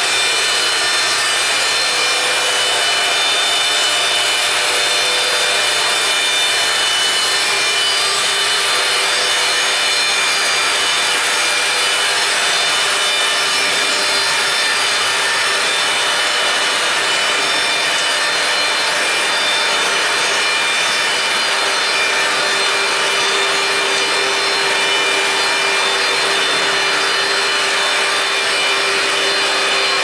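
Mebor horizontal band sawmill cutting lengthwise through a log: a steady, unbroken rasping hiss of the band blade in the wood, with a steady whine from the running machine.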